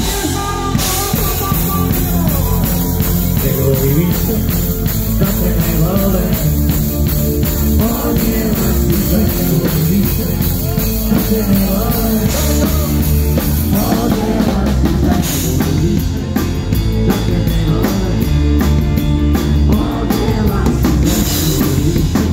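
Live rock band playing a song: drum kit, guitars and bass with singing over them. It is heard from on stage right beside the drums, so the kit is prominent in the mix.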